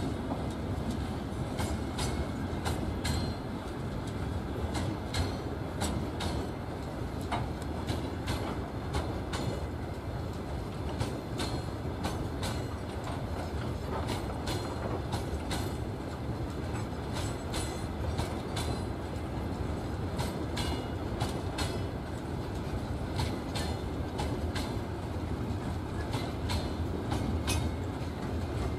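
Freight train of open gondola wagons rolling past: a steady low rumble with many irregular clicks and knocks from the wheels on the track.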